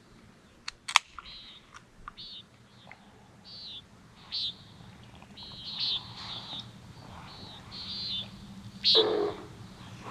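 Common nighthawk booming: one loud, brief boom about nine seconds in, made by the bird's wing feathers as it pulls out of a dive. Short high bird calls repeat throughout, and two sharp clicks come about a second in.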